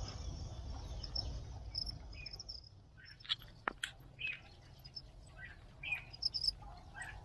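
Crickets chirping in short, high, quick pulses over a low rumble; about three seconds in the rumble drops away and scattered short bird chirps and a few clicks follow.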